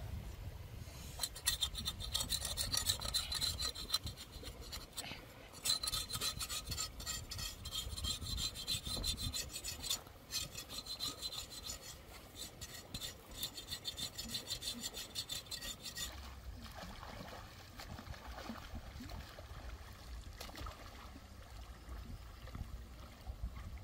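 A large knife blade scraping a cow's tail against the rocks in fast, rasping strokes, in three spells with short pauses. After about sixteen seconds the scraping stops and river water splashes and flows as the tail is dipped in the water.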